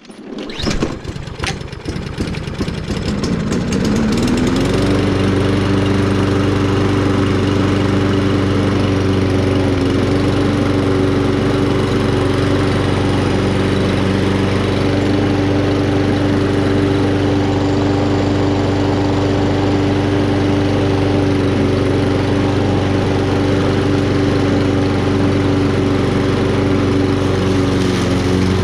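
Push mower's small single-cylinder engine being pull-started: a rattle of the pull, then it catches, revs up over about two seconds and settles into a steady run at constant speed.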